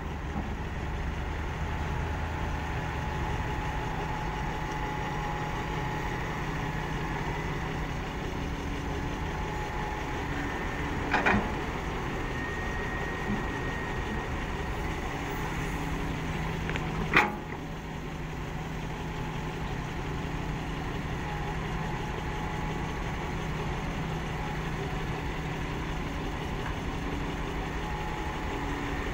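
Diesel engines of a hydraulic excavator and a dump truck running steadily while the excavator loads earth into the truck, with two sharp knocks about six seconds apart.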